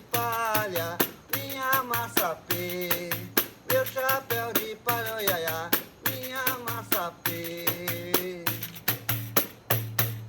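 A man singing a Portuguese children's song, accompanied by a rattle shaken to a steady beat.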